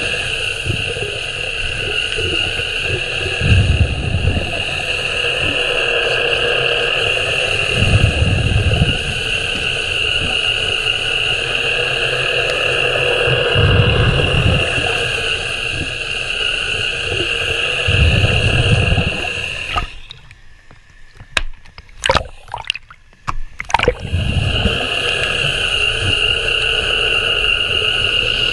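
Remora Solo battery-powered underwater rotary hull brush running steadily against a boat hull, a steady whine heard through the water, with a low rumble every four or five seconds. About twenty seconds in the motor stops for a few seconds, with a few brief blips, then starts again.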